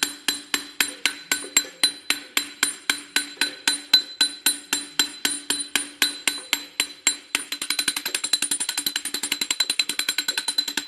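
Hammer tapping the greased wheel-bearing seal into the rear hub: steady metal-on-metal blows about four a second, each with a ringing tone. About seven seconds in the blows become quicker and lighter, about eight a second, as the seal is driven home.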